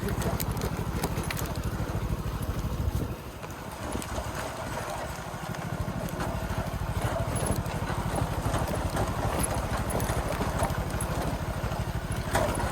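Small Hero motorcycle engine running under load while riding an off-road track, with an even low pulsing. It eases off briefly about three seconds in, then picks up again.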